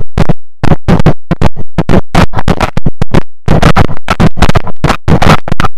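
A very loud, rapid volley of shotgun blasts from several hunters firing together, several shots a second overlapping, with a couple of brief lulls.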